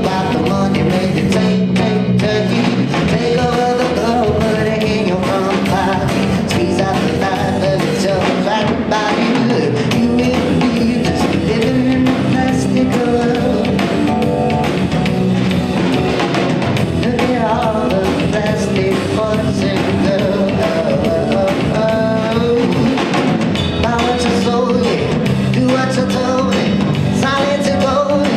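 Live rock band playing, with drum kit, guitar and singing.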